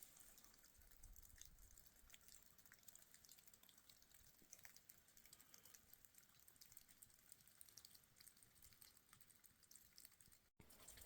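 Near silence with faint, irregular drips of melting snow.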